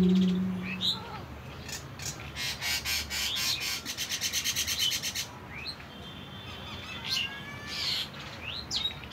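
Birds chirping, with short sliding calls throughout and a fast, even rattling chatter lasting about three seconds from a couple of seconds in. A sustained music tone fades out in the first second.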